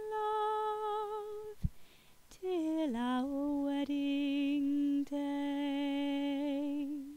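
A woman's solo unaccompanied singing voice holding long slow notes. A higher note breaks off under two seconds in, then the voice slides down in pitch and holds a lower note that wavers slightly until the end.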